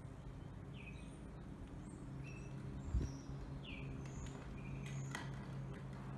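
Small birds chirping in short, separate calls that slide up or down in pitch, over a steady low hum. A single thump sounds about three seconds in.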